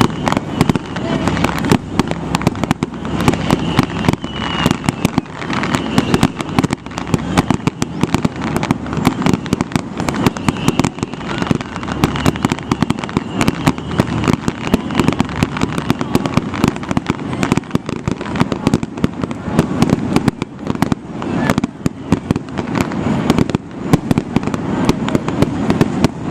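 Aerial fireworks display going off in a rapid, unbroken barrage of bangs and crackling pops, several a second.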